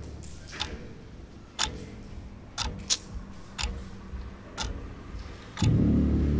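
Clock ticking steadily, about one tick a second. A low drone swells in near the end.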